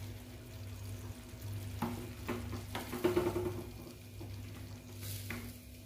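Wooden spoon stirring watery onion gravy in a clay pot, with a handful of short knocks and scrapes of the spoon against the pot, over a steady low hum.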